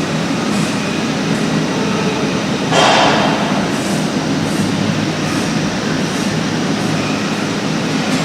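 Steady mechanical running noise with a low hum and faint ticks about twice a second, and a short burst of hiss about three seconds in.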